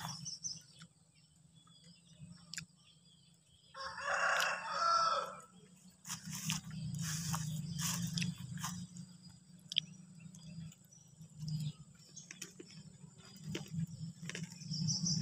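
A rooster crowing once, a call of about two seconds starting about four seconds in, with another crow beginning right at the end. Faint clicks and a low steady rumble lie underneath.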